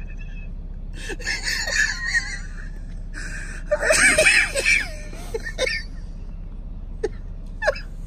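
High-pitched laughter in two bursts, the second louder, about a second and about four seconds in, with a few short sounds after them.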